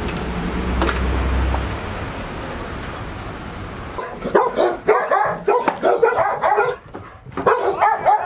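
A steady rushing noise, then about halfway through young golden retriever puppies start barking and whining in quick, overlapping high yips.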